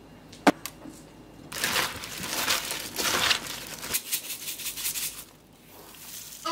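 A sharp tap about half a second in, then a few seconds of crackly rustling as sesame seeds are shaken out of a plastic shaker bottle over seasoned napa cabbage in a stainless steel bowl.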